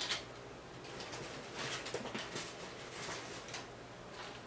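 Paper fast-food wrapper rustling and crinkling as it is handled, in a few short spells.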